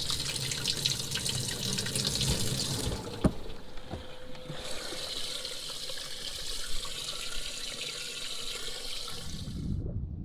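Water running and splashing steadily into a boat's live well. It breaks off briefly with a sharp click about three seconds in, starts again, and stops suddenly near the end.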